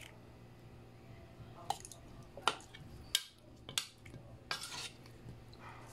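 Metal spoon mixing raw chicken drumsticks with egg and seasoning in a bowl: four sharp clinks of metal against the bowl about a second apart, then a longer scrape near the end.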